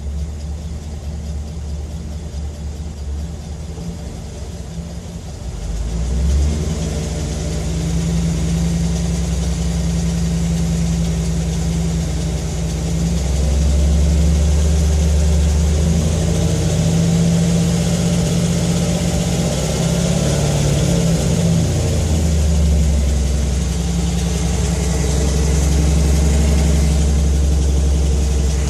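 Car engine idling, with a tick that the owner takes for a possible lifter tick, newly appeared. The engine note steps up about six seconds in and wavers in pitch around the middle.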